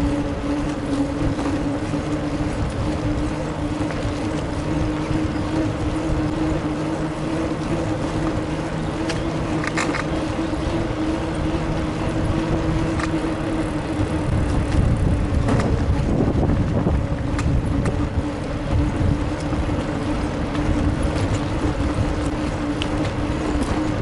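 A bicycle being ridden: a steady hum over a low wind rumble on the microphone, with a few faint clicks and the rumble swelling briefly past the middle.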